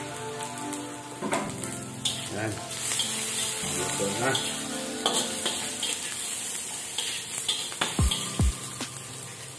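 Chopped onion, garlic and ginger sizzling as they sauté in a stainless steel wok, with a slotted metal spatula scraping and stirring them against the pan.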